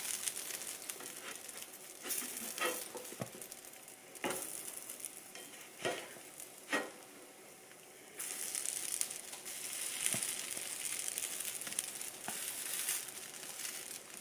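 Pancakes sizzling on a hot stovetop griddle, with a plastic slotted spatula scraping and tapping against it several times as they are flipped. The sizzle grows louder from about eight seconds in, just after a pancake is turned.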